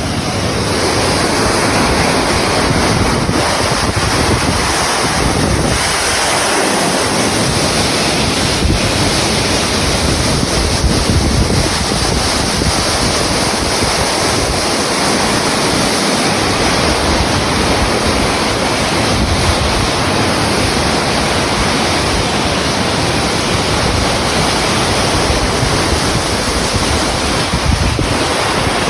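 Steady rush of water, with wind buffeting the microphone.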